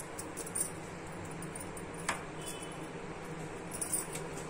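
Steady low room hum with a few light clicks, one sharper about two seconds in: a plastic spoon adding salt to a steel bowl of fried chicken pieces.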